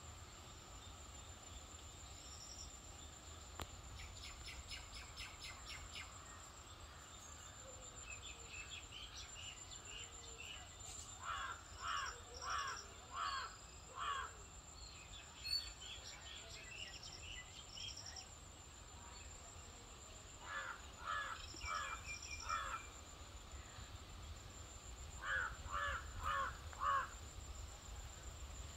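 A crow cawing in three bouts of four or five calls each: the first about eleven seconds in, the others near twenty and twenty-five seconds. Fainter bird chirps and a steady high-pitched whine run underneath.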